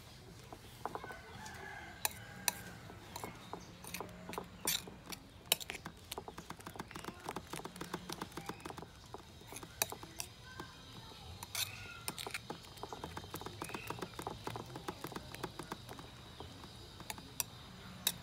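A metal spoon beating eggs with chopped herbs in a bowl, clicking rapidly and unevenly against the bowl's side. Chickens cluck now and then in the background.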